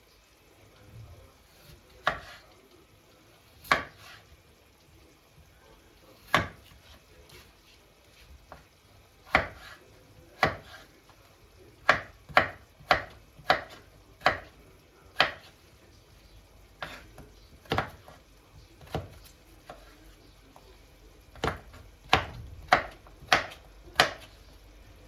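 About twenty sharp knocks at an uneven pace, some a second or more apart and some in quick runs of about two a second, clustered around the middle and near the end.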